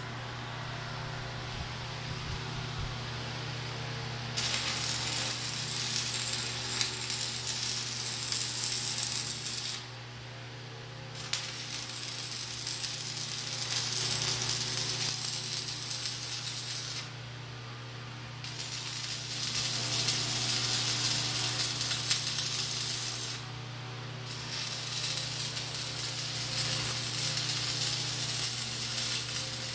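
Stick welding with a 6013 electrode, 1/8 in, at 140 amps: the arc crackles and hisses in four runs of about five seconds each, with short pauses between them, over a steady low hum.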